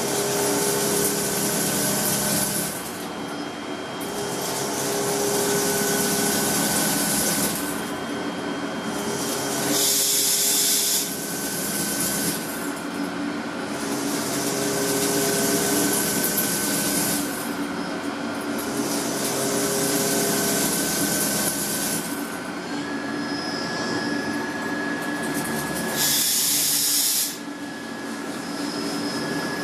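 Gear-making machinery in a workshop running with a steady hum, broken by repeated hissing bursts a few seconds long.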